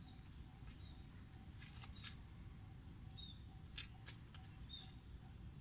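Quiet background with a low rumble, a few faint short high chirps scattered through it, and several soft clicks, the sharpest nearly four seconds in.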